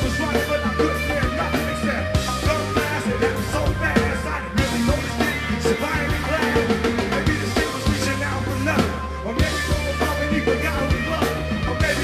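Rock band playing live: drum kit, bass guitar and electric guitar over a steady beat.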